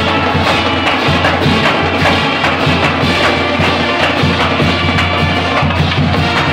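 College pep band playing: trombones, trumpets and saxophones over a marching drumline of snare drums, tenor drums and a bass drum, with a steady, quick drum beat throughout.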